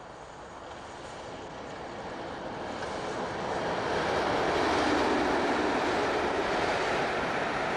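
British Rail Class 31 diesel locomotive, with its English Electric V12 engine, approaching and passing close by with its train. The engine and wheel noise grows steadily louder over the first four seconds and stays loud as the locomotive goes past.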